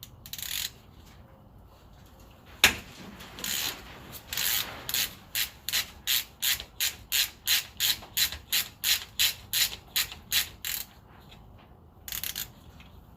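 Ratchet wrench being worked back and forth, clicking about three times a second for several seconds after a single sharp clack. It is most likely loosening the fill plug on the rear differential to check the gear oil level.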